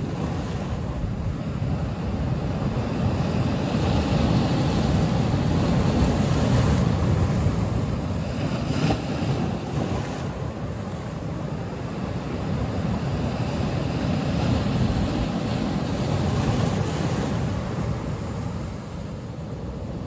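Ocean surf breaking on a shore of rounded lava boulders: a low rumble with white-water hiss, swelling louder twice as sets of waves come in.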